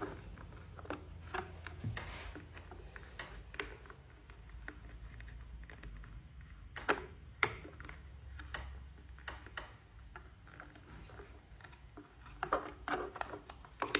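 Scattered light clicks and handling noises of hands working a knot in a wire lead close to a container, with a few sharper clicks about halfway through, over a low steady hum.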